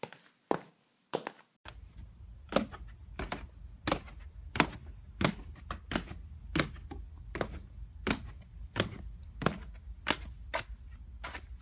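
High-heeled shoes clicking on a hard surface in steady footsteps, about one and a half steps a second, each sharp heel strike followed by a fainter tap. A low steady hum comes in about two seconds in.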